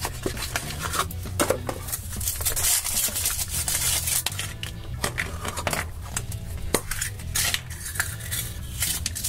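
Hands unpacking a chocolate surprise egg: a cardboard box handled, the chocolate shell cracked open, and the plastic toy capsule inside pried apart, giving a run of irregular clicks, taps and rustles.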